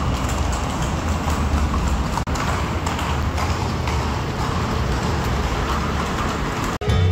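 Horses' hooves clip-clopping at a walk on an asphalt street, a quick, continual patter of hoofbeats.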